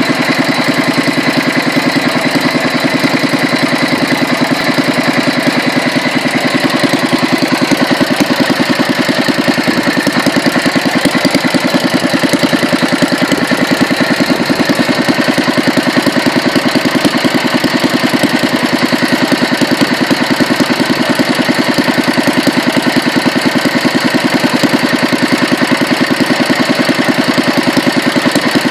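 Petter A1 single-cylinder stationary engine running steadily at an even speed, its firing beats regular and unbroken: running smoothly after a rebuild and fine tune.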